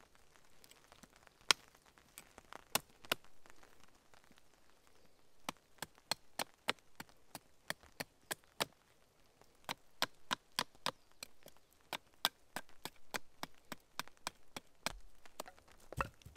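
Wood being cut with a blade on a tree stump: sharp, dry cracks and knocks. They come in irregular runs of several a second, sparse at first and densest in the middle, with a couple of duller thuds near the end.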